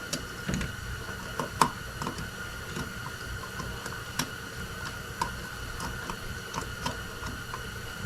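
Irregular light clicks and taps of small metal carburetor parts and a hand tool being handled during reassembly, the loudest about one and a half seconds in, over a steady faint high-pitched hum.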